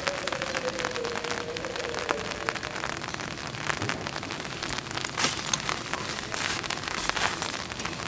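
Steady rain falling on wet ballast and track, with drops striking close by as many sharp ticks. A faint tone slides slightly down and fades away over the first two seconds or so.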